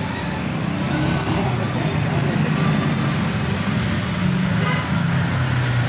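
Motor vehicle engine running amid road traffic, a steady low rumble.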